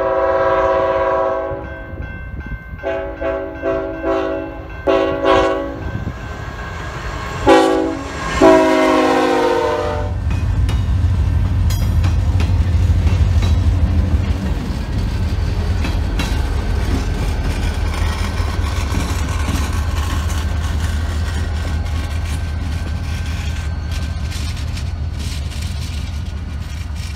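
A locomotive air horn sounds a chord in several blasts: a long one, a run of short ones, then two more, ending about ten seconds in. Then a diesel locomotive's engine, the Wisconsin Central GP40's turbocharged EMD V16, runs with a steady low drone as the train rolls by, wheels clattering over the rail joints.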